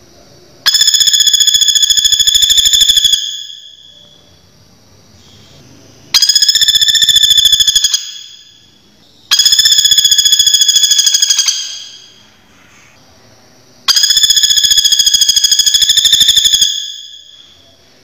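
Flameback woodpecker (pelatuk bawang) giving its loud rattling call four times, each a very fast, even trill about two to three seconds long.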